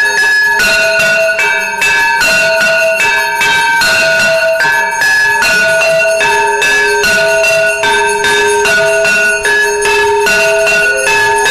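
Hindu temple bells ringing loudly in a steady rhythm during arati, struck a little more than once a second, with the notes changing from one strike to the next.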